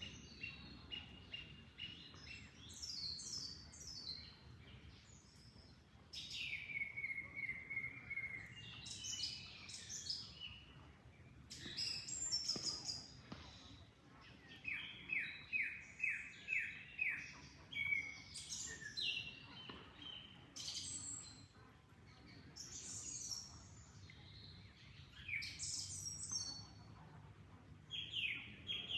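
Several songbirds singing over one another: bursts of rapid repeated chirps and short descending trills, such as a run of about seven quick notes around the middle. Beneath them is a faint, steady low background noise.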